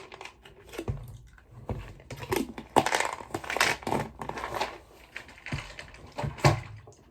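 Handling noise: irregular rustling and crinkling, with scattered clicks and knocks.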